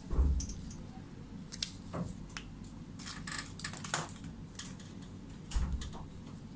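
Scattered light clicks and taps, with a dull thump just after the start and another near the end.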